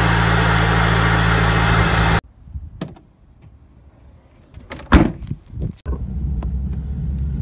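Mazdaspeed 3's turbocharged 2.3-litre four-cylinder idling steadily on newly fitted spark plugs, until a cut about two seconds in. Then a few light clicks and one loud thump about five seconds in, the trunk lid shutting, and from about six seconds a steady low engine hum heard from inside the car's cabin.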